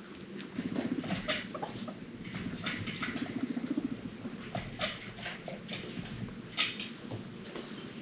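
Guinea pig rumbling: a low, rapid buzzing purr in short bouts, twice. It is mixed with scattered sharp clicks and rustles, the loudest a single click near the end.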